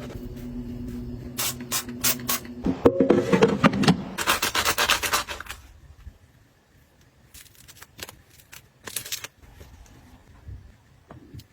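Objects being handled: rubbing and scraping with a quick run of clicks, loudest in the first half, then a few scattered light taps. A low steady hum runs under the first few seconds and stops.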